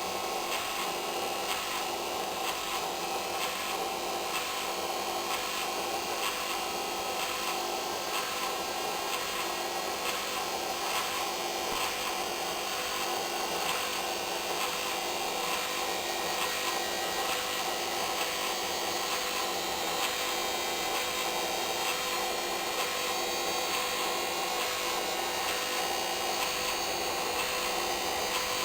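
Hoover Inter@ct washing machine running at a constant speed, with a steady motor whine over an even rubbing, swishing noise that grows slightly louder near the end. The motor is a transplant from a Candy Alisée.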